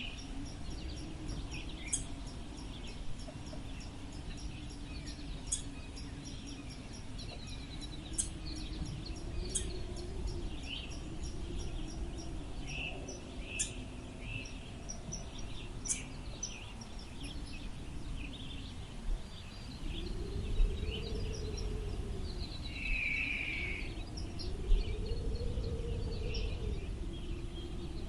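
Wind blowing, with a low hollow tone that swells and fades in slow gusts, louder in the last third. Scattered high bird chirps and twitters run through it, with a short buzzy call late on.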